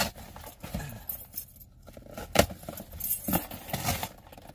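Keys on a keyring jangling and clinking while a cardboard box is cut open with a key, with irregular scrapes and rips of cardboard as the flaps are pulled apart.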